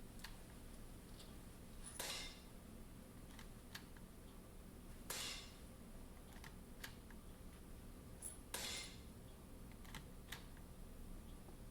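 Weihrauch HW 110 T pre-charged air rifle firing three shots about three and a half seconds apart, each a sharp crack with a short tail, with small mechanical clicks between shots as the action is worked for the next pellet.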